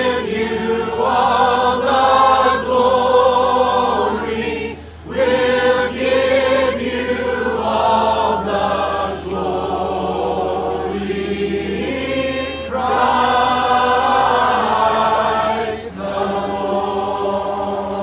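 Congregation of men, women and children singing a hymn together, in long phrases with short breaks about five seconds in and again near the end.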